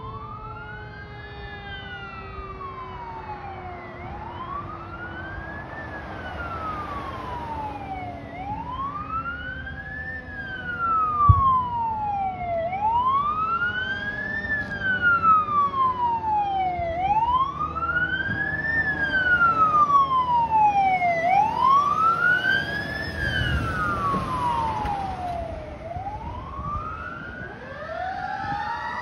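Fire truck siren in wail mode, its pitch rising and falling about every four seconds and growing louder as the truck approaches. A single sharp click sounds about 11 seconds in.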